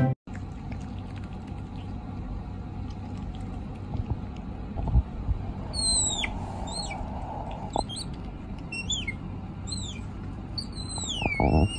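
Young otter giving a series of high, thin squeaks, each falling in pitch, starting about halfway through, the last one longer and wavering. A low rustle of handling near the end.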